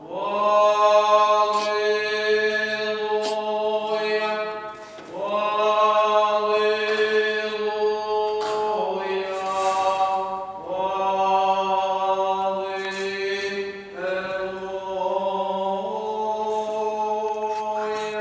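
Eastern Orthodox liturgical chant: long sung phrases, each sliding up into a held note, over a steady drone note held underneath. About four phrases follow one another.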